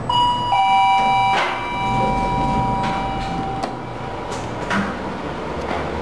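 Schindler Elegant machine-room-less elevator's arrival chime: a two-note ding-dong, high then lower, each note ringing on for a few seconds. A few short knocks follow.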